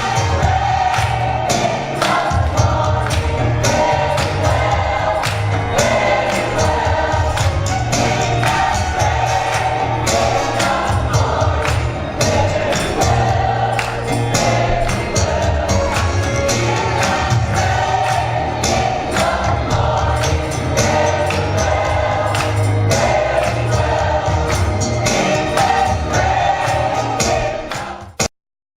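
Gospel music: choir singing over a band with a strong bass line and a steady beat of drums and tambourine. It cuts off suddenly near the end.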